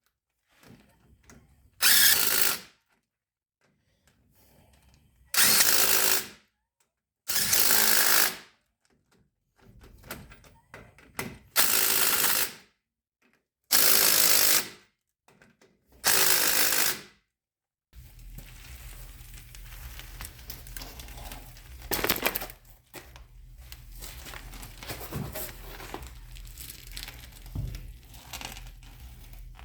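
Cordless impact wrench running in six short bursts of about a second each, snugging bolts on a Ford F-350's rear brake assembly. After the bursts there is a low steady hum with a few scattered knocks.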